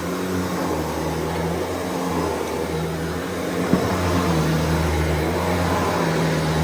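Shark Duo Clean Detect XL plug-in upright vacuum cleaner running steadily on carpet, its low hum shifting slightly as it is pushed, with a single knock about halfway through.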